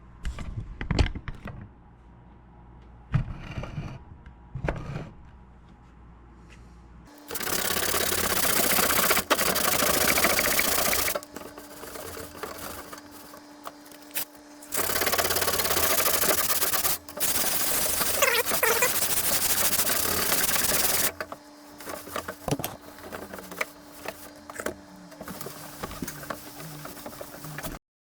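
A power sander grinding rust off a metal stereo frame in three long loud stretches, with a steady motor hum under it that carries on more quietly between and after them. Before it starts there are a few light clicks and scrapes.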